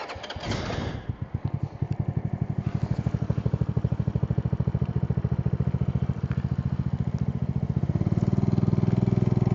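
50cc scooter's single-cylinder engine catching about a second in and then running at a steady, rapid pulse, a little louder near the end, heard through a microphone inside the rider's helmet.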